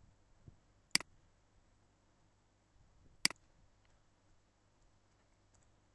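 Two sharp computer mouse clicks, about two seconds apart, over a faint steady hum.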